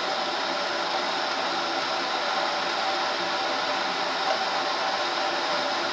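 Steady whirring fan noise, an even hum and hiss that holds at one level without a break.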